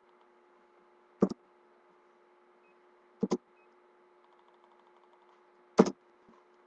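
Three sharp knocks on a tabletop, each a quick double hit, about a second in, past three seconds and near six seconds, over a faint steady hum.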